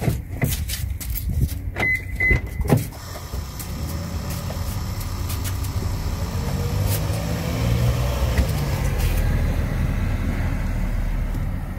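Several clicks and two short high beeps, then a steady low mechanical hum starts about three seconds in and keeps running.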